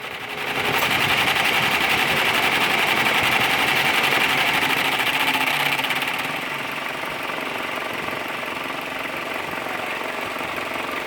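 Renault Scénic radiator cooling fan running with a fast, rhythmic rattle. The fan's shaft bearing is worn, which lets the blade run loose and wobble. The noise swells about half a second in, then eases a little around six seconds in and settles to a steady level.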